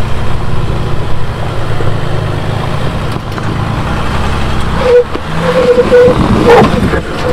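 A Jeep Wrangler EcoDiesel's 3.0-litre V6 turbodiesel works under load as the Jeep crawls through a deep rut. The drone is steady at first, then gets rougher and louder about five seconds in as the tyres spin in the dirt.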